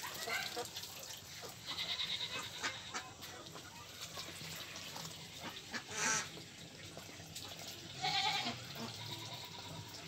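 Domestic ducks quacking, in short buzzy calls, with the loudest about six seconds in and again about two seconds later.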